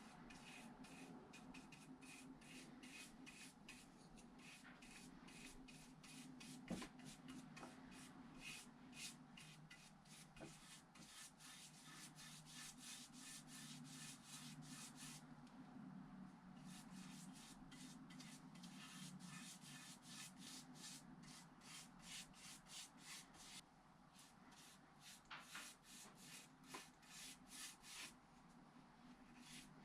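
Faint hand sanding of wood: quick, repeated rubbing strokes, two or three a second, pausing briefly twice.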